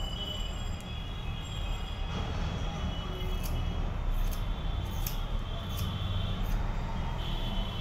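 Haircutting scissors snipping through hair, a sharp click about every two-thirds of a second from a few seconds in, over a steady low rumble.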